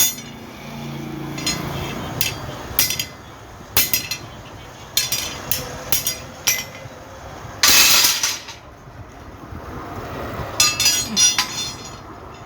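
A series of sharp clinks and knocks at irregular intervals, each with a short ringing tail, with a longer, louder one about eight seconds in.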